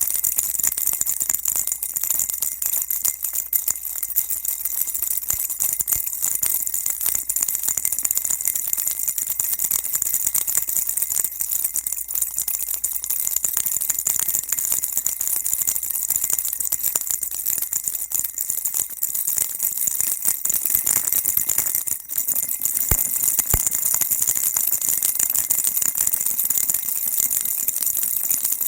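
Baby rattle shaken continuously, giving a dense, steady, high rattling without pauses.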